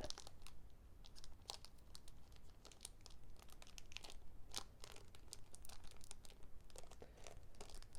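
Faint, scattered crinkling and rustling of a foil booster-pack wrapper and trading cards being handled, with small clicks and crackles now and then.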